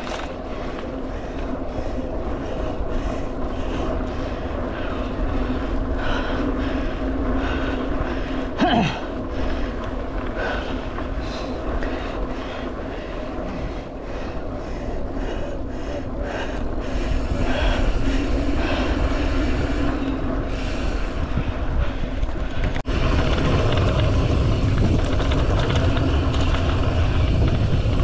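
Wind rushing over the microphone and tyres rolling on a dirt trail as a mountain bike is ridden, with scattered clicks and rattles. The rush grows louder about two-thirds of the way through.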